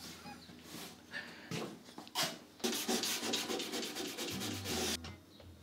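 Sanding by hand inside a freshly cut V-notch in a plywood boat hull: a few scattered scrapes, then about two seconds of fast, even back-and-forth strokes that stop shortly before the end.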